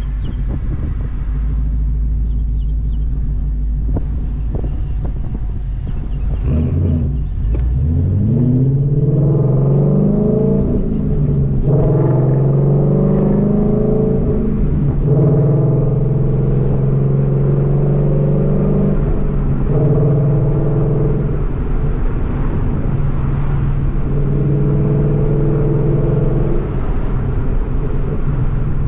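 Ford Mustang engine and exhaust, heard from inside the cabin: a low idle rumble, then about seven seconds in the car pulls away and the engine note rises, breaks for a gear shift near twelve seconds, and settles into a steady cruise. The engine is running on E85.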